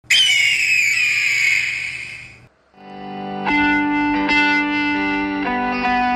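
A raptor-like screech that falls in pitch and fades over about two and a half seconds, then distorted electric guitar music with long held notes coming in about three seconds in.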